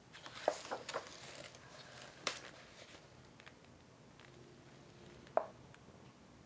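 Paper pages of a large book being turned by hand: a rustle of paper with a few soft taps over the first three seconds, then one sharp tap a little after five seconds.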